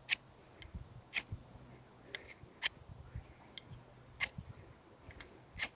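Ferro rod scraped along the spine of a Reini Rossmann Irbis knife, about ten short, sharp strikes a half second to a second apart, throwing sparks: each side of the spine is being tried to see whether one strikes better than the other.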